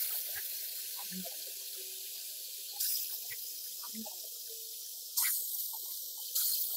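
Gravity-feed paint spray gun hissing as compressed air atomizes primer, renewing with a sudden louder burst each time the trigger is pulled, three times in the second half.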